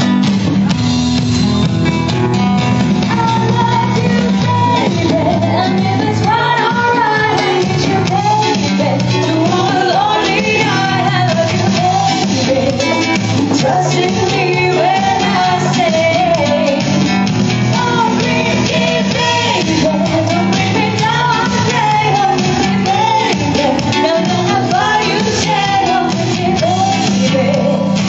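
Live pop music: a melody sung over guitar accompaniment, with a bass line stepping between low notes.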